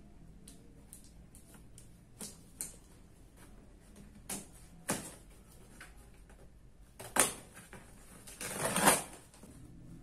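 Large cardboard box and its packing tape handled by hand: scattered light taps and scrapes, a sharp knock about seven seconds in, and a longer scraping, tearing noise near the end, the loudest sound.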